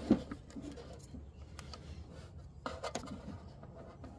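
A plastic spool of MIG welding wire being handled and pushed onto the welder's spool hub: light rubbing and scraping, with a knock right at the start and a few clicks, two sharper ones a little under three seconds in.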